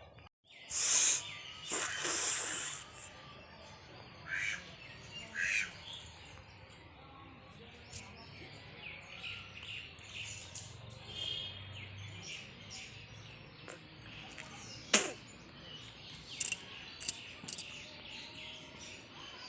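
A person blowing their nose hard, two loud rushing blasts about a second apart near the start and two weaker ones a few seconds later. After that, birds chirp faintly in the background, with a few short sharp clicks.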